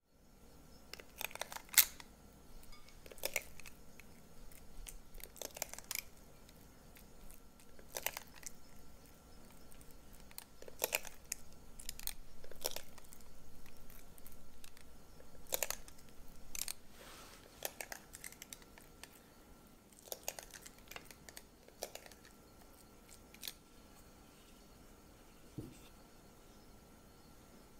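Stainless spring-release scoop clicking and scraping as thick, sticky lupin-flour dough is scooped and dropped into a metal muffin tin, with a sharp click or knock every second or two. The noises thin out near the end.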